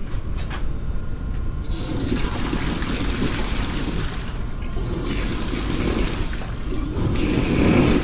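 Bottom blowdown of a Pacific Steel fire-tube steam boiler. Once the valve opens, about two seconds in, hot water and steam rush out of the drain with a loud hiss that swells and eases several times, flushing brown sediment out of the boiler.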